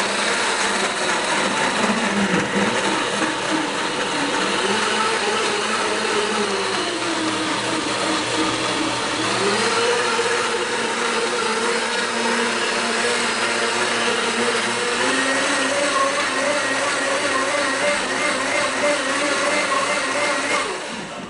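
Blendtec Total Blender running its preset smoothie cycle on a jar of leafy greens, frozen banana and juice. The motor's pitch dips, then climbs in steps as the cycle changes speed, and it shuts off at the end.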